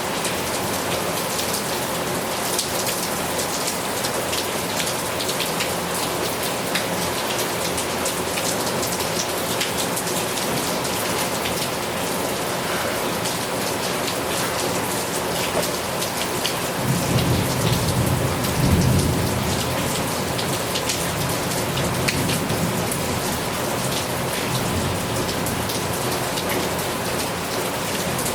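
Heavy rain falling steadily, a dense hiss full of fine drop patter. About two-thirds of the way through, a low roll of thunder rumbles for a few seconds and fades.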